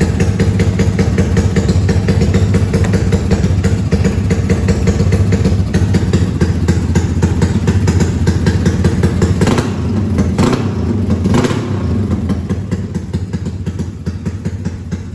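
Motorcycle engine running loudly and steadily, with a few short revs about ten seconds in.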